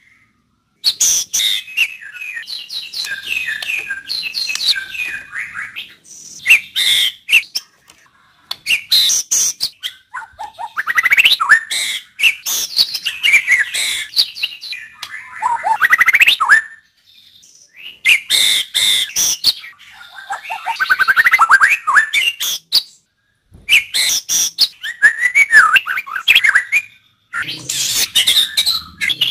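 White-rumped shama (murai batu) singing loud, varied phrases of fast whistles and trills mixed with sharp clicking notes, in bursts of a few seconds broken by short pauses.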